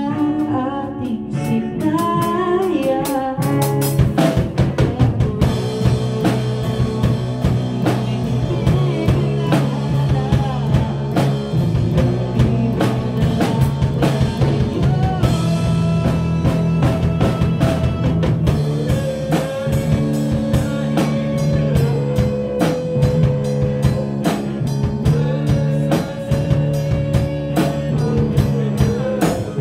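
A small band playing live: drum kit, electric bass and guitar, with a man singing into a microphone. The drums come in about four seconds in and keep a steady beat.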